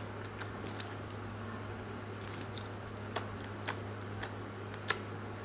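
Clear slime being poked and squeezed by fingers, giving faint sharp little clicks and pops at irregular intervals, about eight in all, over a low steady hum.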